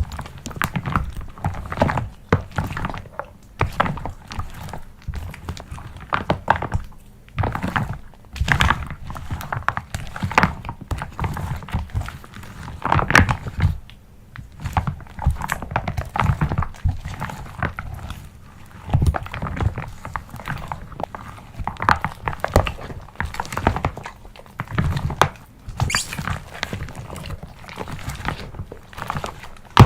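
Slime being mixed and handled in a container: a run of irregular thunks and knocks.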